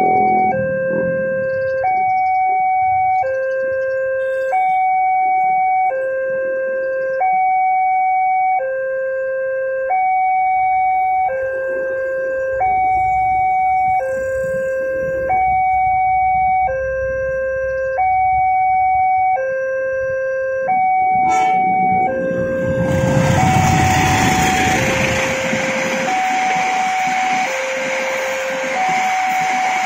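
Level-crossing electronic warning alarm sounding two alternating tones, changing about once a second. About 23 seconds in a passenger train arrives and passes: a loud rush of wheel and rail noise with a deep rumble, while the alarm keeps sounding.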